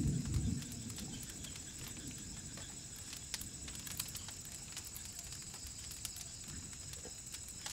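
Night insect chorus: a steady, high-pitched trill with many scattered faint clicks. There is a brief low thud right at the start.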